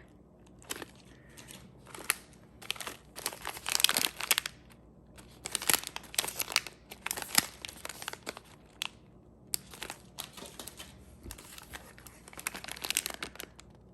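Small packaged snacks' wrappers crinkling as they are handled, in irregular clusters of crackles.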